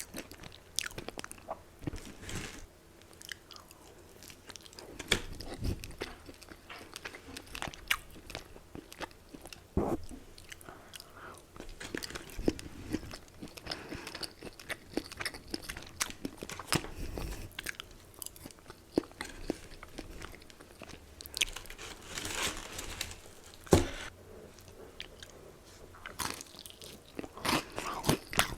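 Close-miked ASMR eating: crisp fried chicken crunching under the teeth and being chewed, a steady run of sharp crackles with a few louder bites.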